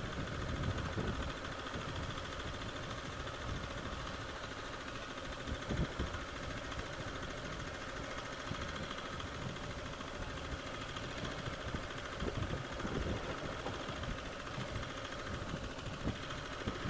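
AJP PR7's single-cylinder engine running steadily as the motorcycle is ridden along a dirt track, with a few louder low knocks.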